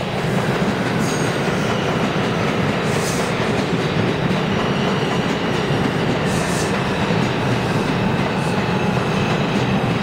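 New York City subway train moving past the platform, a steady running noise of wheels on rail.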